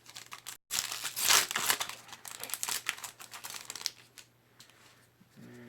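Foil wrapper of a Magic: The Gathering booster pack crinkling and tearing as it is opened by hand, in a dense crackly run that fades out after about four seconds. A low steady hum starts just before the end.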